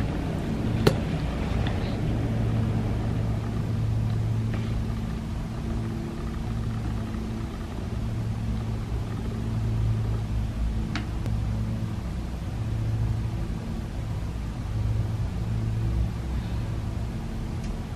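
A steady low droning hum that swells and fades every second or two, with a sharp click about a second in and another near eleven seconds.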